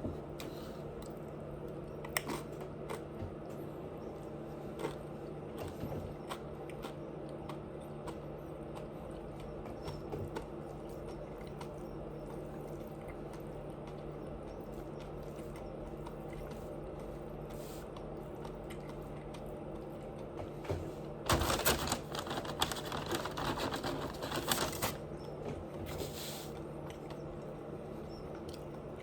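Person eating close to the microphone: scattered small clicks and mouth sounds of munching over a steady low hum, with a few seconds of denser crackling, the loudest part, about three quarters of the way in.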